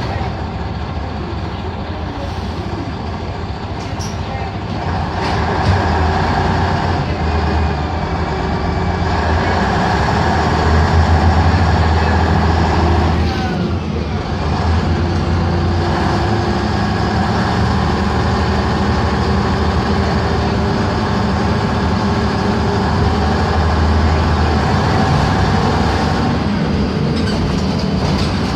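LiAZ-5256.30 city bus under way, heard from inside: its YaMZ-236 V6 diesel engine runs steadily, building up in loudness twice and dropping off briefly about halfway through.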